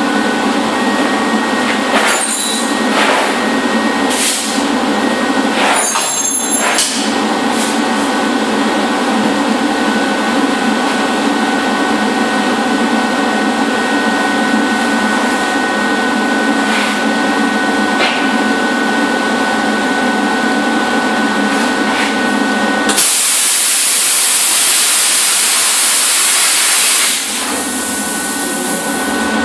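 Plasma cutter cutting steel plate: a steady hissing hum with a thin high whine, a few sharp clicks in the first seven seconds, then a louder, airier hiss for about four seconds near the end.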